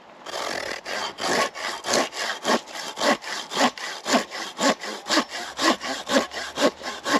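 Fiskars Xtract SW75 coarse-toothed pull saw cutting through a branch by hand: a rasping stroke-by-stroke sawing that starts a moment in and keeps a steady rhythm of about two strokes a second, louder and softer strokes alternating.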